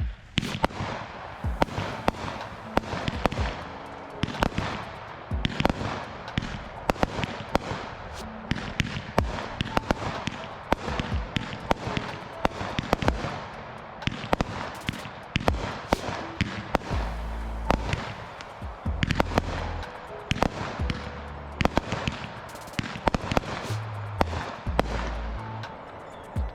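Consumer firework cake (Solar Explosion) firing shot after shot: a continuous run of sharp bangs and crackles, with background music underneath.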